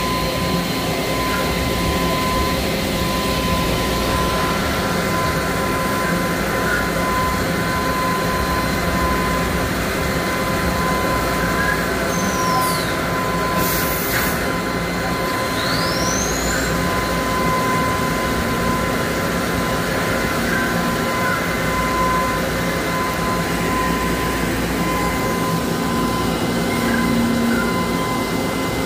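Makino A51NX horizontal machining center running with a steady machine hum and a constant whine. About halfway through, the spindle winds down in a falling whine, there is a brief noise as the automatic tool change happens, and the spindle winds back up in a rising whine.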